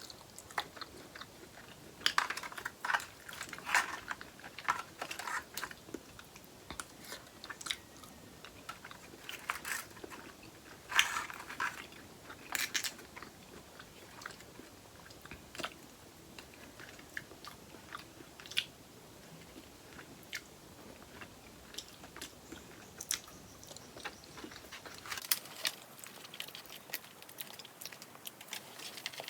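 A person chewing and biting seafood-boil food close to the microphone: short, irregular mouth clicks and bites in spurts, thicker in the first half and again near the end.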